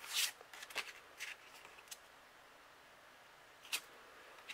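Stiff cardstock message cards being handled: a quick run of short papery rustles and taps in the first two seconds as a card is slid off the stack and set down, then one more soft tap near the end.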